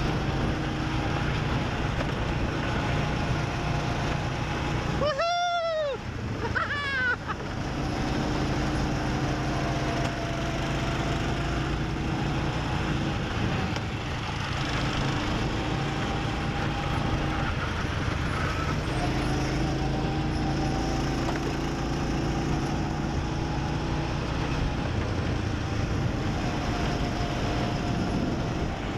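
Go-kart engine running steadily at speed, heard from on board the kart. About five seconds in, two short squeals that rise and fall in pitch.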